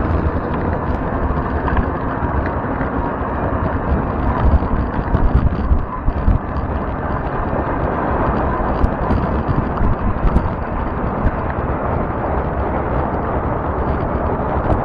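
Steady rushing noise of a fat-tire e-bike riding over cracked asphalt: the fat tyres rolling, with wind buffeting the microphone in an uneven low rumble and a few faint ticks.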